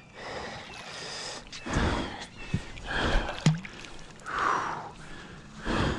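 A hooked striped bass thrashing and splashing at the surface beside the boat, in several short bursts of water noise, with a brief knock in the middle.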